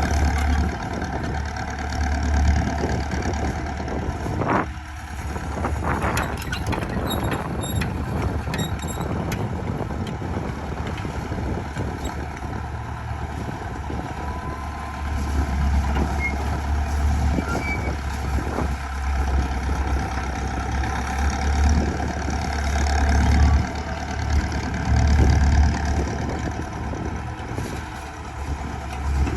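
A heavy vehicle's engine running with a steady low rumble.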